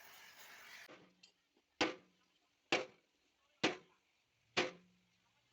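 Hammer striking metal in steady, evenly spaced blows, four strikes about a second apart, each sharp with a short ring. They follow a second of background hiss that cuts off abruptly.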